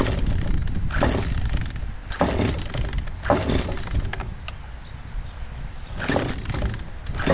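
Craftsman chainsaw's recoil starter cord being pulled several times, about one pull a second, with a pause midway. The two-stroke engine does not fire; it is on choke after a fuel line repair.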